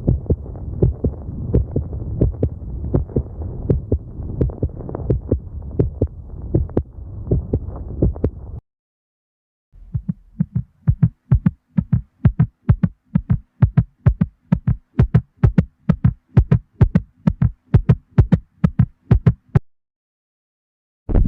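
Heartbeat sounds as heard through a stethoscope, in two separate recordings. The first is a regular beat over a steady rumble. After a brief silence, the second is a crisp, quick, evenly spaced beat, which stops near the end.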